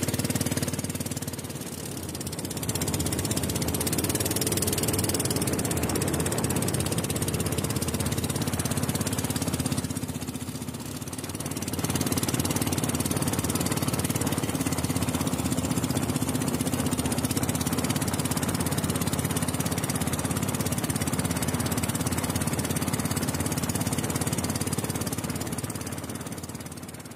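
Small motorboat engine running steadily at speed, with a fast chattering beat and the rush of the hull through the water. It eases back briefly twice, about two seconds in and again about ten seconds in, then fades out near the end.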